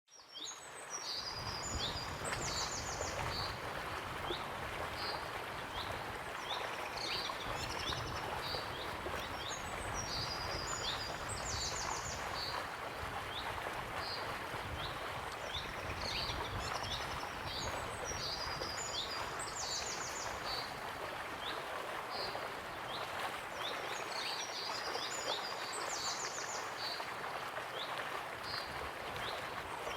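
Waterfall rushing steadily, fading in over the first second, with small birds chirping and trilling high above it. The bird phrases recur every six or seven seconds.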